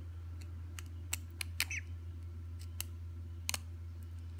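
Tweezers picking and snapping small pieces of shell off a hatching duck egg: a run of sharp little clicks at uneven intervals, with a short peep from the duckling inside about two seconds in. A steady low hum runs underneath.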